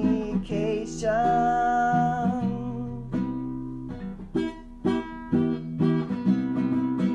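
Background music on plucked acoustic guitar, with a long held melody note about a second in.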